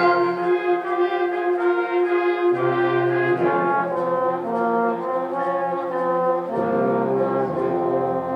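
High school symphonic band playing held chords, with lower notes entering about two and a half seconds in and again about six and a half seconds in.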